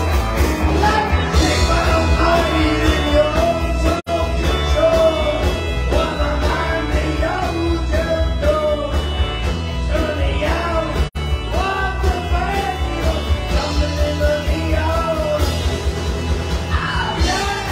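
Live rock band playing: a male singer over electric guitars, keyboard and drums. The sound cuts out for an instant twice.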